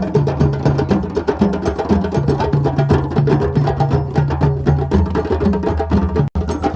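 Drums played by hand in a fast, dense, steady rhythm, with low booming notes alternating under sharper strokes. The sound cuts out for an instant near the end.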